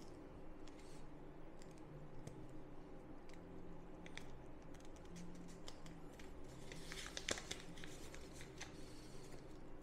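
Faint crinkling and ticking of kinesiology tape being handled: the tape and its paper backing rustle as it is stretched and pressed onto the skin, with a denser run of crackles about seven seconds in as the backing paper is peeled off.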